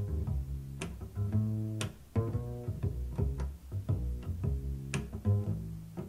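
Music played through a pair of M-Audio AV32 compact desktop speakers and recorded from the room: a run of plucked, bass-heavy notes with light percussive clicks.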